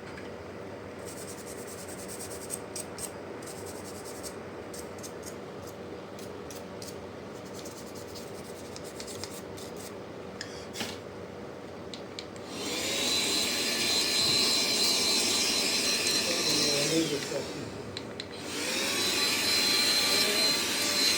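A low steady hum with scattered faint clicks. Then, about twelve seconds in, a small electric power tool starts running loudly with a steady high whine. It cuts out briefly and starts again.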